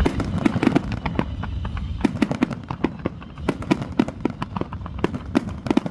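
Fireworks display going off: a rapid, irregular stream of sharp bangs and crackles, with a low rumble under them for the first couple of seconds.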